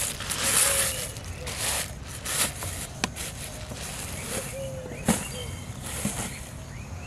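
Plastic bag and woven sack rustling and crinkling as they are handled, loudest in bursts over the first two and a half seconds, then two sharp clicks, one about three seconds in and one about five seconds in.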